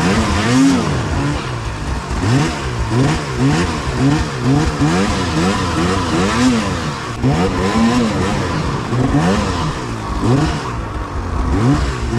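Arctic Cat Alpha One snowmobile's two-stroke engine revving up and dropping back over and over, about once or twice a second, as the throttle is blipped. It is working for grip on a hard, icy crust between trees.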